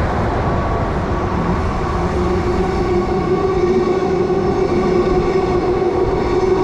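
Transperth electric multiple-unit train running through the station without stopping. Steady running noise, with a pitched whine that sets in about halfway and holds.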